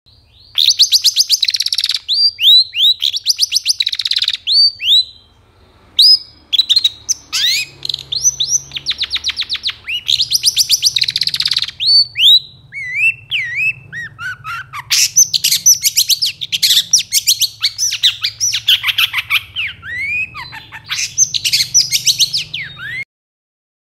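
Long-tailed shrike (cendet) singing hard and continuously. It gives fast chattering runs of rapidly repeated notes mixed with sharp down-slurred whistles. The song breaks off briefly about five seconds in and stops about a second before the end.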